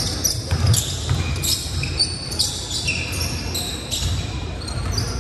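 Basketball play on a hardwood gym floor: sneakers squeaking in short high chirps and a basketball bouncing with low thuds, in a large reverberant gym.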